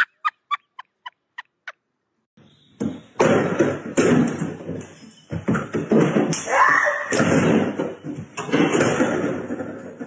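A quick run of laughter fading out, then, after a short pause, a loud stretch of bangs, thuds and clatter against a wooden door.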